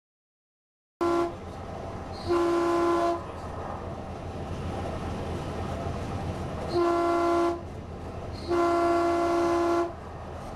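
Light rail train running along the track, its horn sounding four blasts over the rolling noise. First a short blast and a longer one, then about four seconds later two longer ones.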